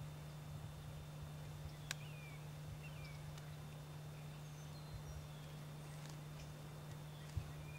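Faint outdoor quiet with scattered short, high bird chirps over a steady low hum; a click about two seconds in and a sharp thump near the end.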